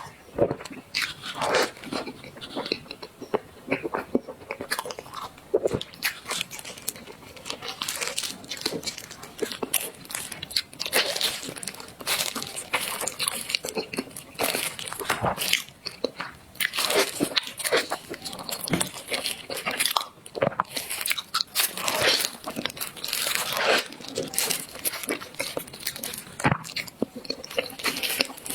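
Close-miked eating of small desserts: repeated crisp bites and crunchy chewing in an irregular stream.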